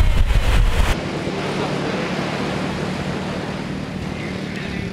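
Wind buffeting the microphone for about a second, then, after a sudden change, a steady wash of small surf breaking on a sandy beach with wind noise.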